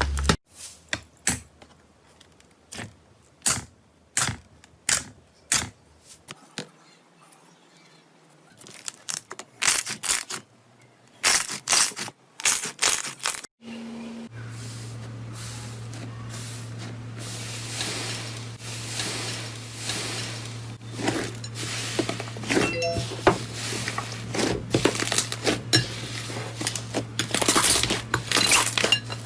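Slime being squeezed, poked and stretched by hand, giving runs of sharp clicks, pops and crackles. From about halfway a steady low hum runs underneath.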